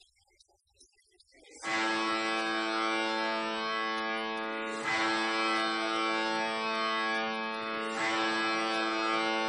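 Music: a sitar-like plucked-string drone, sustained and dense, that comes in suddenly about a second and a half in and is struck again twice, about three seconds apart.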